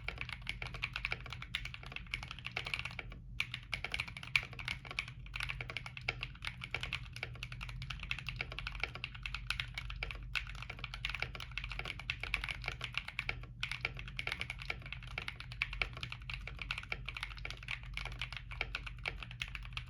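Continuous fast typing on a Womier K66 acrylic mechanical keyboard with stock CIY Naraka switches, double-shot ASA keycaps and a tape mod: a dense stream of key clacks with a few brief pauses.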